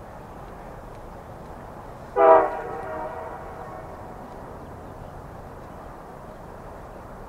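Horn of an approaching Canadian Pacific diesel locomotive: one short blast, starting about two seconds in and fading over about a second.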